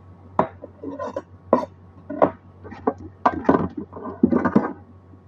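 A string of sharp knocks and clatters as a knife and a stainless steel bowl are handled and set down on a cutting board, about nine in all, some with a short metallic ring. A steady low hum runs underneath.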